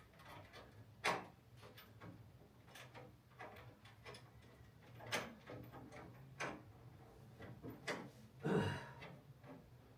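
Light clicks and knocks, about half a dozen at irregular intervals, as a hinge bolt is worked into a car door by hand.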